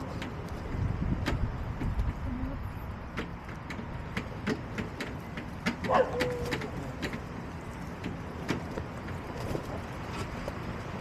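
Backyard hens: one short call about six seconds in that drops in pitch and then holds briefly, over many scattered sharp taps and a steady low rumble.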